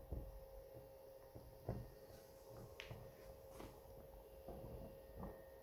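Near silence: room tone with a faint steady hum and a few soft clicks and knocks.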